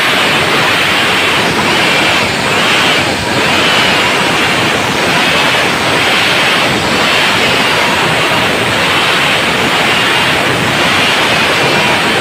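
Stihl MS 382 two-stroke chainsaw at full throttle ripping lengthwise along a timber beam, the engine and cutting chain running steadily, their pitch dipping and rising a little every second or so as the load changes.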